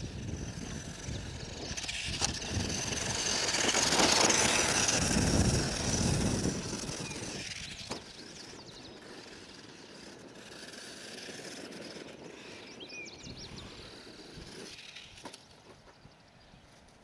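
Electric motor whine and tyre noise of a Traxxas 1/16 Summit RC truck with a brushed motor, driving on the dirt track. It grows louder over the first few seconds and fades away after about six seconds. Birds chirp near the end.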